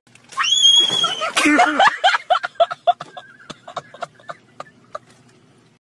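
A short high-pitched squeal, then a run of laughter in quick pulses that dies away.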